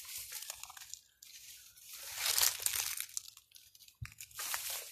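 Footsteps crunching through dry leaf litter and grass, in uneven patches of crackling, with a low thump about four seconds in.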